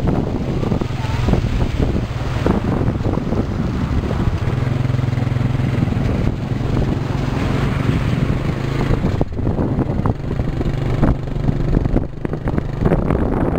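Small motorcycle engine running steadily, with wind buffeting the microphone.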